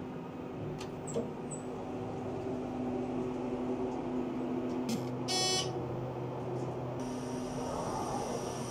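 Hotel passenger elevator running with a steady hum. A short electronic beep sounds about five seconds in as the car arrives, and the doors slide open near the end.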